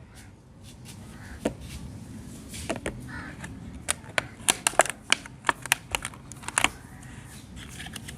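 Sharp, irregular clicks and clatters of small hard objects being handled. A few come early, and they bunch into a quick run from about four to seven seconds in.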